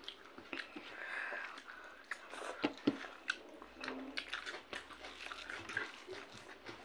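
Close-up eating sounds: chewing and lip smacks from chicken curry and rice eaten by hand, as many short, irregular clicks.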